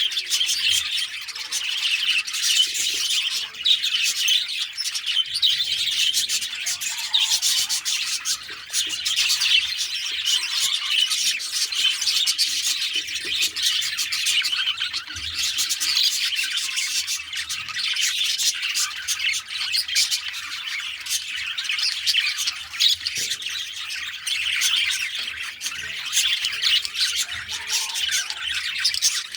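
A flock of budgerigars chattering together: a dense, unbroken mix of many overlapping chirps and squawks.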